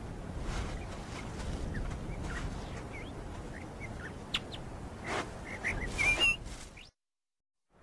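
Honey badger cub giving short high squeaks and chirps, with a louder squeal about six seconds in, over the scraping of its mother digging a den in sandy soil. The sound cuts off suddenly near the end.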